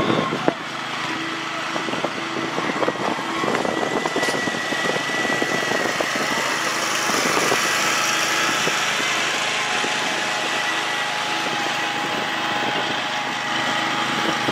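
A steady engine drone with a faint whine, swelling slightly about halfway through.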